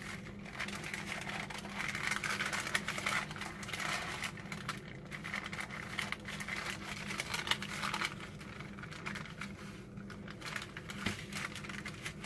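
Paper napkin rustling and crinkling as hands press and fold it over a hot cheese crisp on a paper plate, blotting off the grease. Irregular, with many small crackles.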